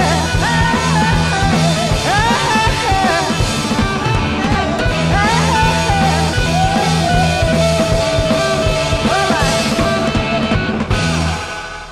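Early-1970s heavy psychedelic hard rock: a lead electric guitar bends notes and holds a long sustained note over driving bass and drums. The band stops about eleven seconds in, and the last chord rings away.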